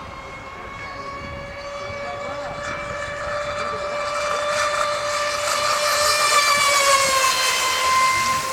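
Fast-electric Copperhead deep-V RC boat running at speed: a steady high motor whine with water hiss that grows louder as the boat approaches, then drops in pitch as it passes by about seven seconds in.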